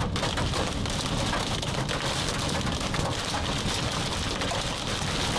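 Wind-driven rain and hail pelting a car's windshield and roof from inside the cabin: a dense, steady patter of hits over a constant rush of wind.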